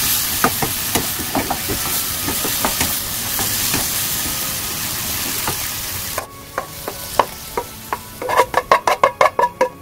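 Asparagus, button mushrooms and onion sizzling in oil in a nonstick frying pan, tossed with a wooden spatula that clacks against the pan. About six seconds in the sizzle drops away, and near the end a fast run of clicks and scrapes as the spatula pushes the vegetables out of the tipped pan onto a plate.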